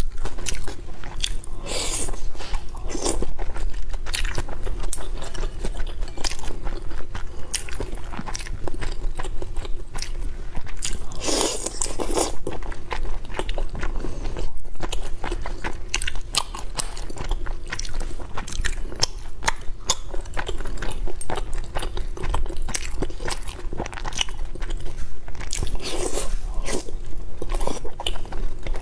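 Close-miked eating of bobo chicken, skewered vegetables and meatballs in chili oil: continuous chewing with crunching and wet mouth clicks and lip smacks.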